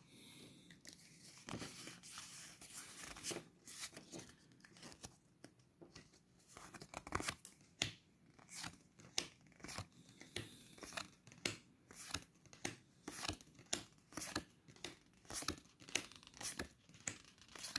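Foil booster-pack wrapper crinkling for the first few seconds, then Pokémon trading cards being flicked through one by one, each making a sharp card snap, about two a second.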